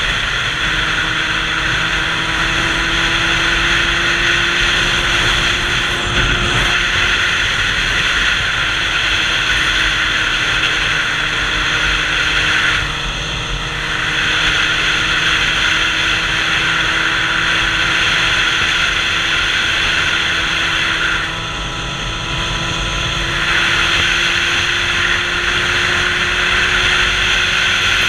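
Sport motorcycle cruising at a steady speed, its engine tone holding even and creeping slowly up, under a loud rush of wind over the microphone. Twice the wind rush briefly eases.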